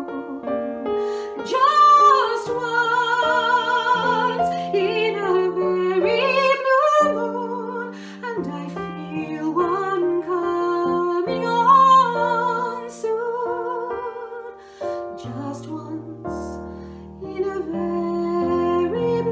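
A woman singing a slow song, with vibrato on her held notes, accompanied by a digital piano. A low sustained bass note comes in near the end.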